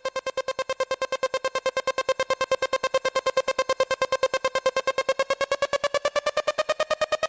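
Electronic music: a single synthesizer note repeated in fast, even pulses, holding steady and then slowly rising in pitch near the end.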